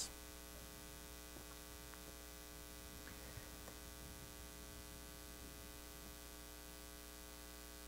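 Faint steady electrical mains hum with a few very faint ticks; otherwise near silence.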